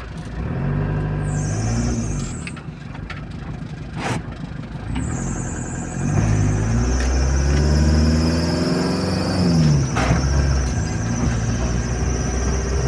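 Fiat Ducato van's 2.8 diesel engine heard from inside the cab, pulling away on a dirt road: its pitch rises, drops at the gear changes and climbs again, with a couple of knocks. A high thin whine sets in about halfway through.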